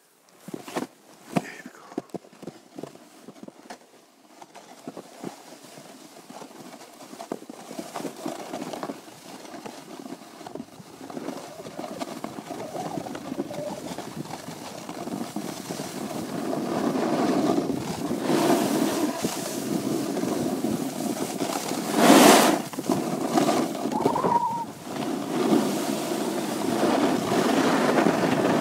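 Snowboard sliding down a snow-covered run: the scraping hiss of the board on snow, mixed with wind on the microphone, grows steadily louder as speed builds. A few sharp knocks in the first seconds, and one brief loud rush of noise about two-thirds of the way through.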